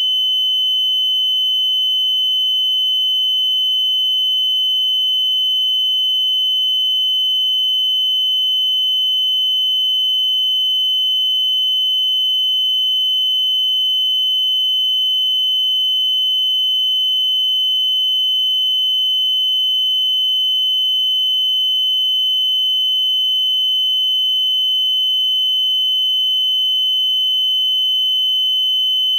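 Patient heart monitor giving one unbroken high-pitched tone that holds steady: the flatline sound of a monitor that detects no heartbeat.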